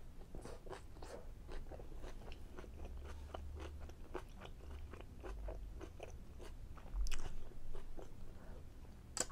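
Person chewing a mouthful of chicken fajita close to the microphone: many small wet mouth clicks and smacks, several a second, with a louder thump about seven seconds in.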